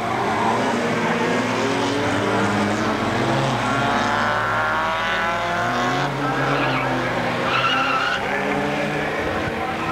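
Rallycross cars' engines running hard as they race past, several engine notes overlapping, with revs rising in the middle. A brief tyre squeal comes about eight seconds in.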